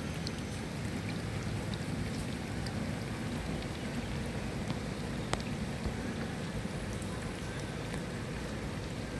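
Steady rain falling, a constant low rushing with scattered sharp drips, one distinct drop about five seconds in.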